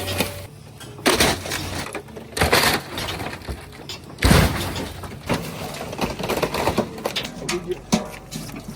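Excavator crushing a scrapped car: a run of heavy crunching hits on sheet metal, the loudest about four seconds in, followed by smaller rattling knocks over the low rumble of the machine.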